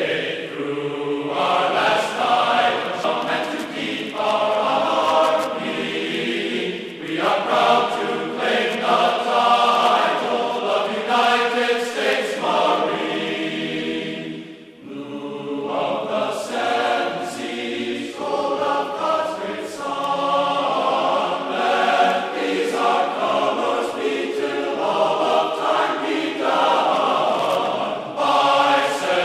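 Background music with sung, choir-like voices, dipping briefly about halfway through.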